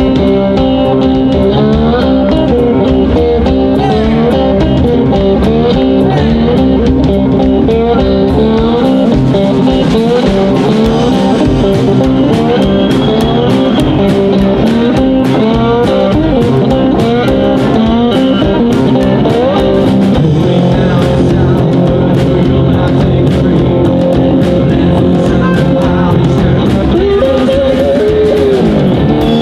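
A live blues band playing loudly and steadily: electric guitar leads over upright double bass and drums, and a harmonica comes in near the end.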